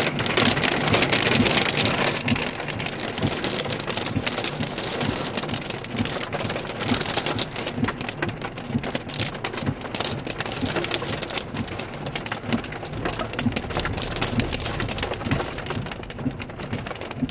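Heavy rain and hail hitting the car's roof and windows, heard from inside the car as a dense patter of many sharp individual hits. It is heaviest in the first couple of seconds.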